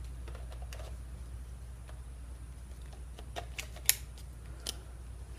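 Small plastic clicks as an LP-E6-type battery is slid into a Canon 70D's battery compartment and the battery door is shut, with one sharp click about four seconds in and a softer one near the end.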